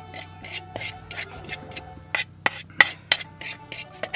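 A utensil scraping the inside of a wooden bowl in a run of quick strokes, getting the last of the carbonara egg-and-cheese sauce out into the pasta pot. The strokes come faster and sharper in the second half.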